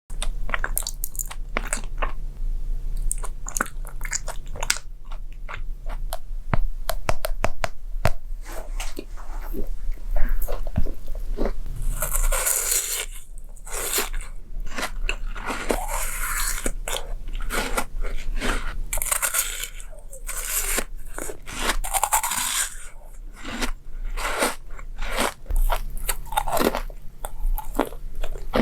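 Crunchy bites and chewing of food, a dense run of crackling crunches with several louder bursts of crunching partway through, over a faint low hum.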